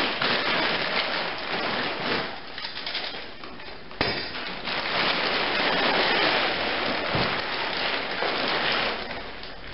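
Tent fabric and packaging rustling and crinkling as they are handled, with a single sharp knock about four seconds in.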